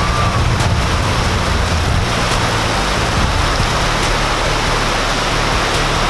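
Small waterfall spilling in a thin stream down a layered rock cliff and splashing onto the rocks below: a steady rush of falling water.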